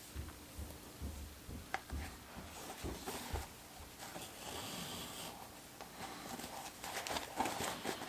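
Handling noise: irregular rustling with scattered light taps and soft knocks, a little busier near the end.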